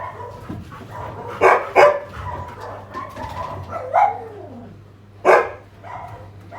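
Dogs barking: two sharp barks in quick succession about a second and a half in, another near four seconds and a loud one past five seconds. Softer whines and yips come in between.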